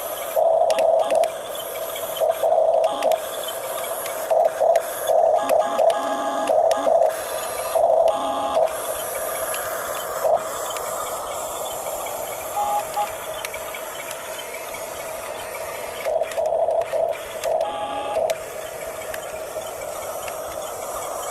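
Huina 1569 RC bulldozer's electric motors whining in short, start-stop bursts as it is driven and its blade worked, over a steady background whine. The bursts come thick in the first nine seconds, pause, and return briefly about sixteen seconds in.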